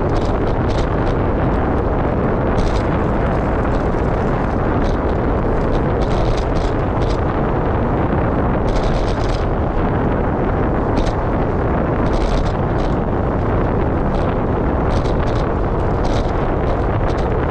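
Wind buffeting the camera microphone in a steady, loud rumble, with scattered short high ticks coming and going.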